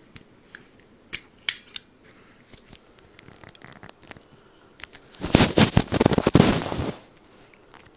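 Scattered small clicks of handling, then about a second and a half of loud crackling rustle from about five seconds in: plastic wrapping being torn open to get at a pair of AAA batteries for a TV remote.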